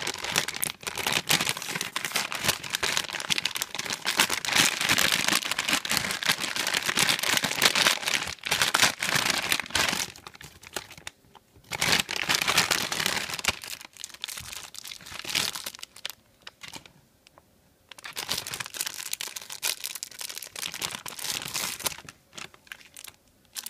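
Plastic surprise-bag packaging crinkling and rustling as it is handled and torn open, in bursts with a few short pauses.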